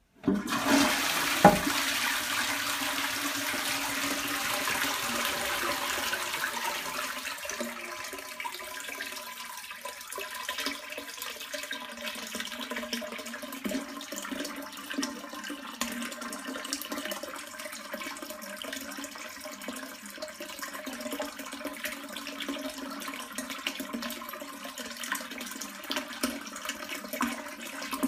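Toilet flushing: a sudden rush of water into the bowl with one sharp knock about a second and a half in, settling after several seconds into a quieter steady stream of water running from the rim into the bowl.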